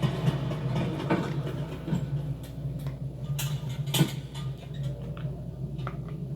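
Film sound effects: a steady low mechanical hum with many scattered clicks and knocks over it, two sharper knocks about three and a half and four seconds in.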